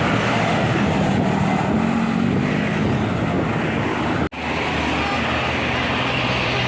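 Roadside traffic noise: vehicles driving past with a steady engine drone and road noise. The sound drops out suddenly and very briefly just over four seconds in.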